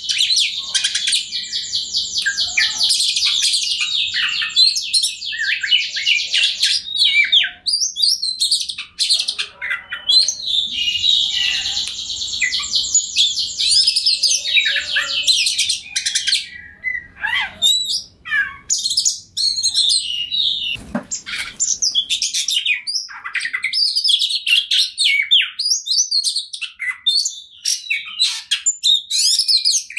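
Oriental magpie-robin singing a loud, continuous, varied song. Long rapid trills come in the first several seconds and again about ten seconds in, followed by shorter whistled phrases with brief gaps between them.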